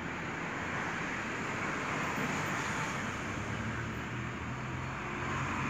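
Steady background noise with a faint low hum and no distinct knocks or clicks, like traffic or a motor running at a distance.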